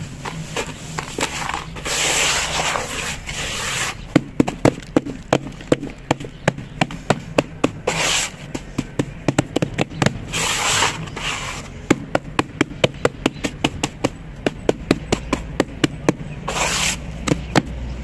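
Bare hands crumbling and working damp cement-sand mix in a tub, with gritty scraping, then patting the wet surface with flat palms in rapid sharp slaps, several a second, broken by short stretches of scraping.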